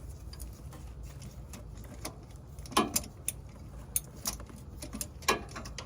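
Metal hand tools clicking and clinking against each other in scattered single knocks, over a steady low hum.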